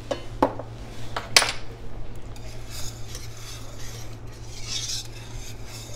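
Wire whisk stirring thick clam chowder in a metal pan, a soft rhythmic swishing and scraping. A few sharp metal clinks come in the first second and a half.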